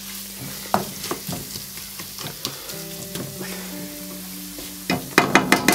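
Onion, spice and tomato-paste mixture sizzling in a frying pan while a plastic slotted spatula stirs and scrapes it. A quick run of louder scrapes and taps against the pan comes near the end.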